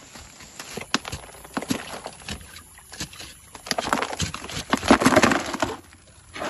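Leaves and twigs rustling and snapping, then stones and gravel clattering and scraping in a plastic gold pan, with water splashing into it, louder in the second half.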